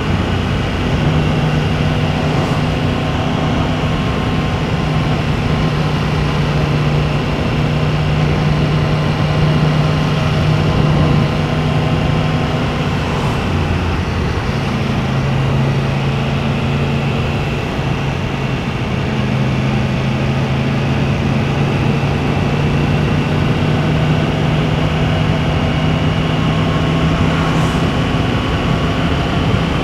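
Yamaha MT-10's crossplane inline-four engine with Akrapovic exhaust, running steadily while the bike cruises, under a haze of wind and road noise. The engine note drops slightly about halfway through and then holds steady.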